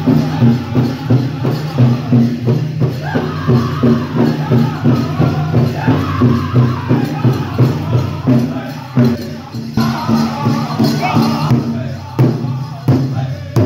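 Powwow drum group playing a grand-entry song: a large drum beaten in a steady, even pulse by several drummers, with the singers' voices over it, and jingling from the dancers' regalia.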